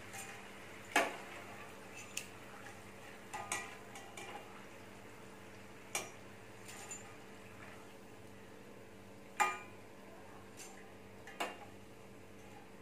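Perforated steel skimmer clinking against the stainless-steel kadai and the strainer as fried murukku are scooped out of the oil: about eight sharp metallic clinks at uneven gaps, the loudest about one second and nine seconds in.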